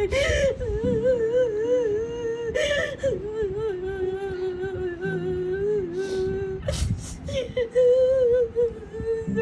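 Slow, mournful background music: one unbroken, wavering melody line with vibrato, held over low sustained chords. A few short hissy sounds cut across it.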